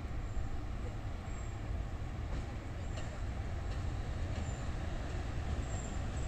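Low, steady rumble of a JR Freight EF210 electric locomotive running light at slow speed through the rail yard, with a few faint clicks through the middle.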